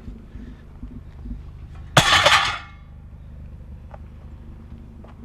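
A loud clatter lasting about half a second, starting sharply about two seconds in, over a steady low hum.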